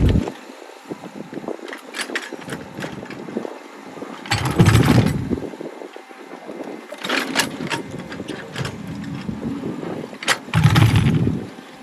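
Excavator working against a large stone, its motor surging under load about three times with short pauses between, and scattered clicks and scraping in between. The surges are the machine straining and failing to shift the stone.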